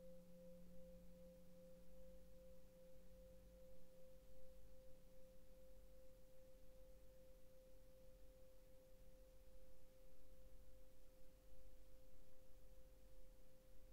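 Seven-metal singing bowl, 18.5 cm across, ringing on faintly with one steady tone that wavers slowly. A lower hum dies away in the first few seconds.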